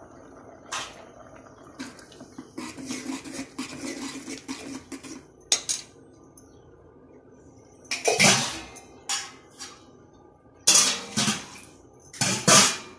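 Steel ladle stirring a thick coconut-and-vegetable mixture in an aluminium pressure-cooker pot, clinking and scraping against the metal sides in irregular bursts, the loudest three in the second half.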